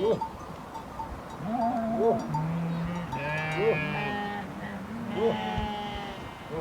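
A flock of sheep bleating, several animals calling over one another, with a fresh bleat about every second and a half.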